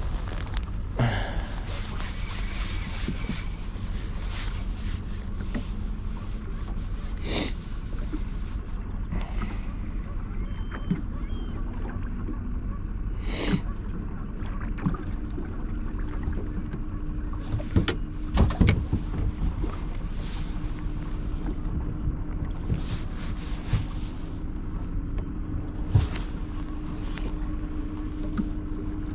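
Small aluminum fishing boat drifting: a steady low rumble of wind and water, with scattered knocks and clicks. A steady low hum comes in about halfway through.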